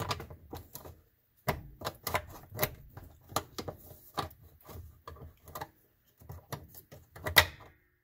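Irregular clicking and knocking of hard plastic parts as a washing machine's white plastic clutch and gear assembly is handled and worked into place on the gearbox shaft. The loudest click comes near the end.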